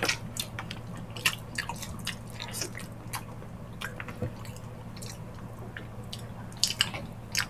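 Close-up wet eating sounds of stewed ox feet eaten by hand: sticky chewing, lip smacks and sucking on the gelatinous meat, heard as a steady string of short wet clicks.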